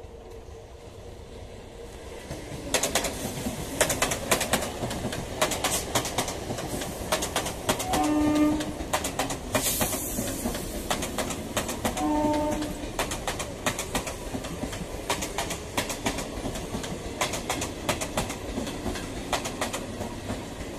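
Electric multiple-unit local train passing close by, its wheels clattering rhythmically over the rail joints as it builds up in the first few seconds. Two short horn blasts sound about four seconds apart, with a brief hiss between them.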